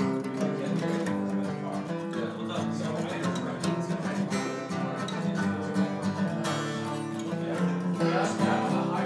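Acoustic guitar music, with chords played on the strings.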